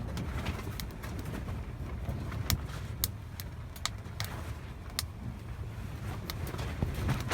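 Burning firewood crackling, with sharp pops at irregular times over a low, steady rumble.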